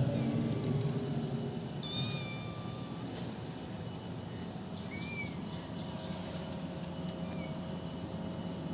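A kitten meowing in a few high-pitched calls, the longest about two seconds in and shorter ones later, with a few sharp clicks near the end.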